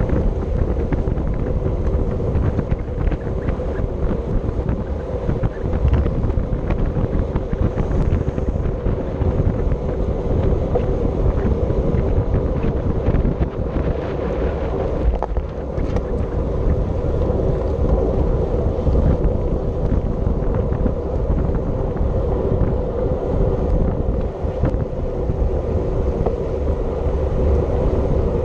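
Wind rushing over the microphone of a camera carried on a road bike ridden at race speed: a loud, steady rush with a low rumble.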